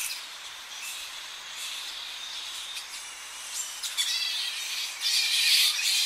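A colony of Tonga flying foxes calling at the roost: many overlapping calls, loudest about five seconds in, over a steady hiss of distant surf.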